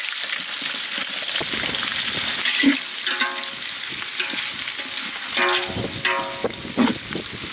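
Sliced onions and green chillies sizzling in hot oil with whole spices in a large aluminium pot, stirred with a ladle that scrapes and knocks against the metal a few times.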